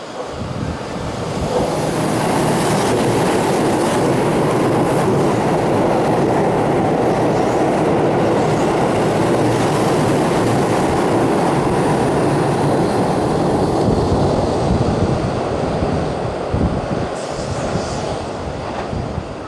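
Keihan 8000 series limited express train running through the station at speed without stopping: a loud rush of wheels on rail that builds about a second and a half in, holds steady for some fourteen seconds, then eases off near the end.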